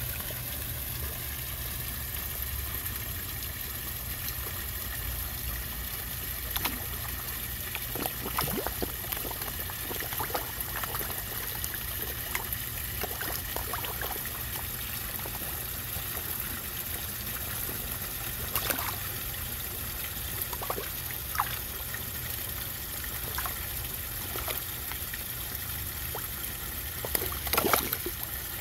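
Koi splashing at the water surface as they crowd a hand to take food pellets: scattered short splashes with a louder flurry near the end, over a steady low rumble.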